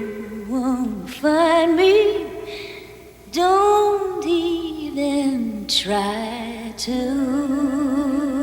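A woman singing long, wavering held notes in several phrases, with music behind.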